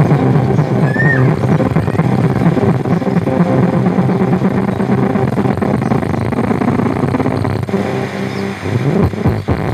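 Bass-heavy music playing loud through two small woofers fed by an LM358 op-amp low-pass bass filter circuit, so it is mostly low, thudding tones with the treble cut away. Near the end it dips briefly, with a few clicks.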